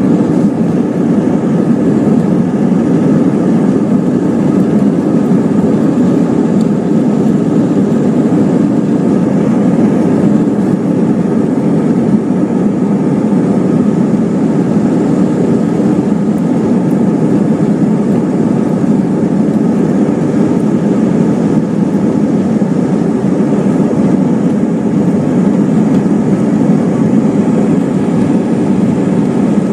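Jet airliner cabin noise while taxiing: a steady low rumble from the engines at low thrust, heard from inside the cabin, with no rise in thrust.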